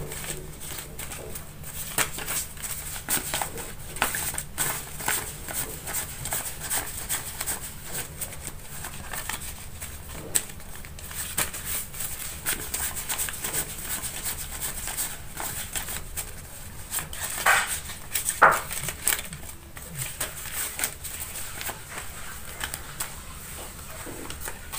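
Rupiah banknotes rustling and crackling as they are counted by hand, peeled off a wad one by one and laid on a pile: a steady run of small crisp paper clicks, with a couple of louder crackles about three quarters of the way in.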